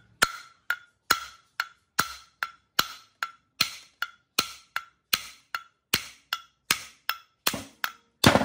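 Steady hammering on a metal part, about two and a half blows a second, each blow ringing briefly; the last blow, near the end, is the heaviest.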